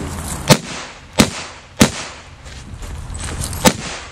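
Smith & Wesson 325 Thunder Ranch .45 ACP revolver firing four shots: three about two-thirds of a second apart, then a pause of nearly two seconds and a fourth near the end.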